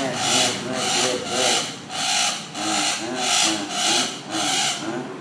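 Chattering lory (the 'Ternate' parrot) screeching in a steady run of harsh, rasping squawks, about two a second, the calls of an agitated, cranky bird.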